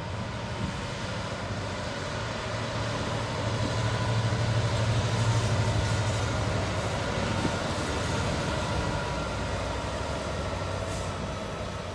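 Freightliner Class 66 diesel locomotive (two-stroke V12) passing at the head of a container freight train. Its engine makes a steady low drone over the rumble of the train, growing louder over the first few seconds, loudest around the middle, then easing off.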